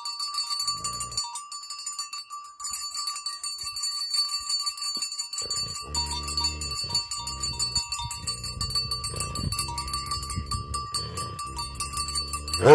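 A Tibetan Mastiff's metal collar bell clanking as the chained dog moves. From about halfway through, the dog barks in a deep voice in a run of drawn-out barks, ending in one sharp, louder bark near the end.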